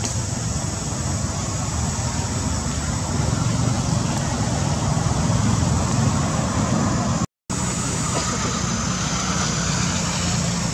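Steady outdoor background noise: a continuous low rumble with hiss above it, broken by a brief dropout about seven seconds in.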